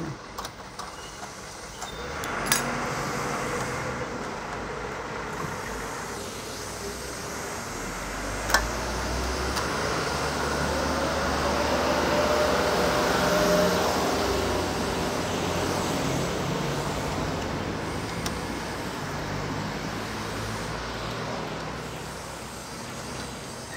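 Road traffic: a heavy vehicle's engine rumble builds over about ten seconds, peaks midway and slowly fades. Two sharp clicks, about two and a half and eight and a half seconds in, come from the panel frame being handled.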